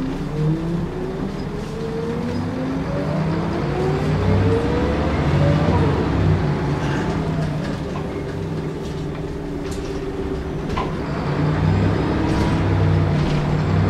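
Scania L94UB bus's DSC9 diesel engine and driveline heard from inside the saloon as the bus pulls away and accelerates. A whine rises in pitch over the first six seconds, drops as the gearbox changes up, then rises again near the end over a steady low engine drone.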